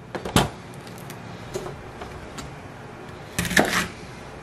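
Chef's knife cutting into a fennel bulb and knocking on a cutting board to take out the core. A sharp knock comes about half a second in, then a couple of light ticks, then a short cluster of cuts a little after three seconds.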